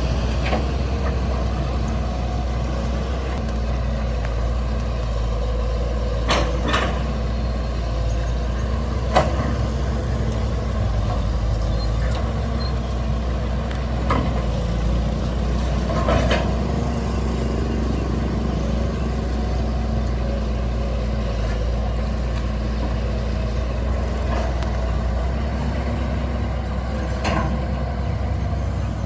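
Excavator's diesel engine running steadily, with about half a dozen sharp metallic knocks scattered through it as the machine works.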